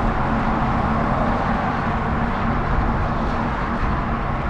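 Steady noise of riding along a busy multi-lane road on an e-bike: traffic and wind rushing on the microphone, with a steady low hum.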